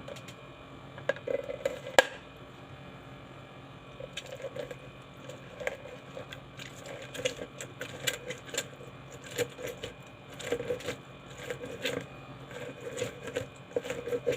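A lemon half being twisted and pressed on a hand citrus juicer: irregular clicks and scrapes, with a sharp knock about two seconds in.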